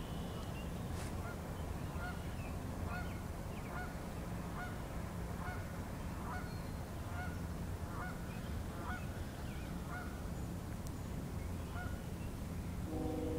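Geese honking, a long series of short calls about one or two a second that stops near the end, over a steady low rumble.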